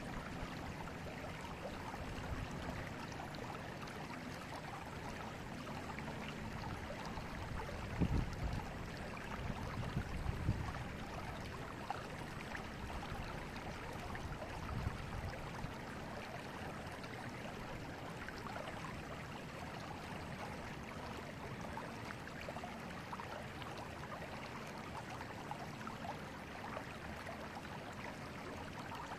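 Forest river flowing steadily, a continuous rush of running water, with a few brief louder low surges about eight and ten seconds in.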